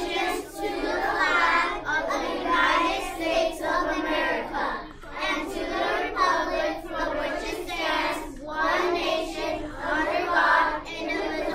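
A class of third-grade children reciting the Pledge of Allegiance together in unison, many young voices speaking in a chant-like rhythm.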